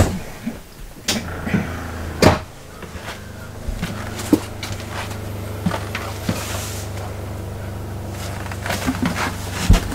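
RV water pump running with a steady low hum from about a second in, pressurizing the water lines to the toilet's newly fitted water valve. A few knocks and clicks of handling sit over it, the sharpest about two seconds in.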